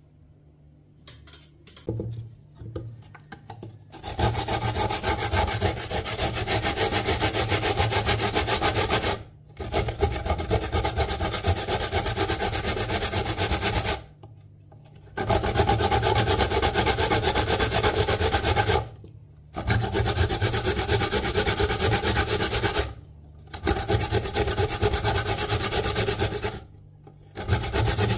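Coconut being grated by hand on a metal box grater: long runs of rapid rasping strokes, each three to five seconds, with short pauses between. A few faint knocks come before the grating starts.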